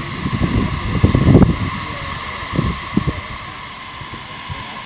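Small live-steam locomotive (7.5-inch gauge 4-8-4) standing in steam, giving a steady hiss. Irregular low rumbling bursts come over it, loudest about a second in, with two short ones near the end.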